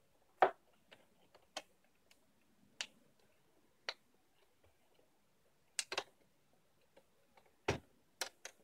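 Plastic screen-bezel clips of an HP Pavilion dv6 laptop snapping loose as the bezel is pried off the lid: about ten sharp clicks at uneven intervals, with a couple close together about six seconds in and a quick cluster near the end.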